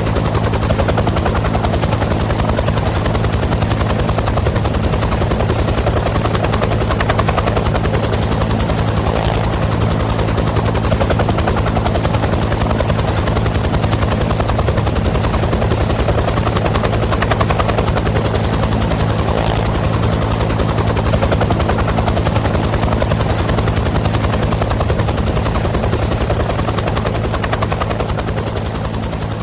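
Bell UH-1 Huey helicopter running, its rotor blades chopping in a fast steady beat over the low drone of the turbine, level and even, easing off slightly near the end.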